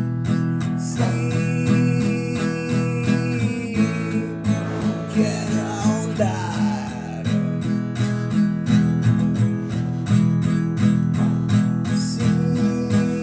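Instrumental space rock music: strummed guitar over a steady pulsing low end, with long held notes at the start and near the end and a wavering, sweeping sound in the middle.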